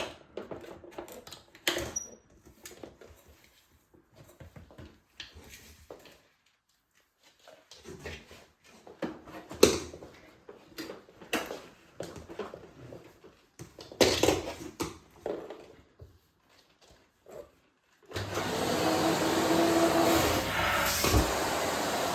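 Scattered clicks and knocks of handling, with short quiet gaps, then a bagless vacuum cleaner switched on near the end, running steadily with a motor whine.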